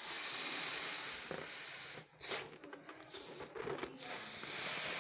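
A person blowing up a party balloon by mouth: long, hissing blows of breath into the balloon, with a quick breath taken between them about two seconds in.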